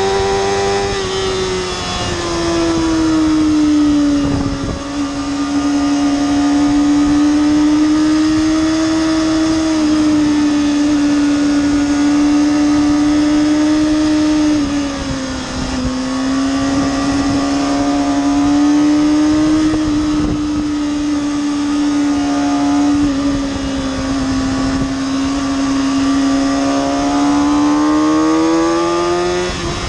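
2007 Kawasaki ZX-6R's inline-four, with a Two Brothers slip-on can on stock headers, running hard at high revs under load. The engine note sags and climbs in pitch, with brief dips about four to five seconds in and again around fifteen seconds, and climbs again near the end.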